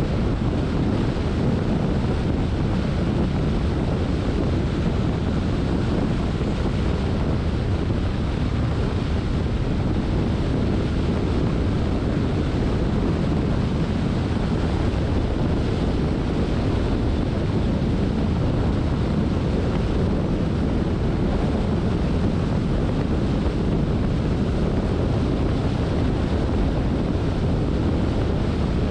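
Steady low road rumble of a car being driven, with no distinct events.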